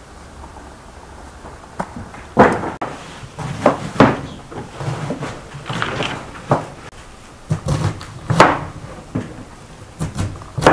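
Irregular wooden knocks and clatter: a string of sharp strikes, unevenly spaced from a fraction of a second to about a second apart, starting about two seconds in.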